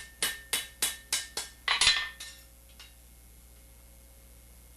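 Blacksmith's hammer striking iron on an anvil: a quick run of about seven ringing blows, roughly three a second, the last one heavier, then stopping about two seconds in.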